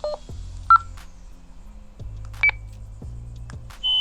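Walkie-talkie keypad beeping as its buttons are pressed to step the volume up: a short beep about three-quarters of a second in, a higher beep about halfway, and a louder, higher steady tone starting near the end.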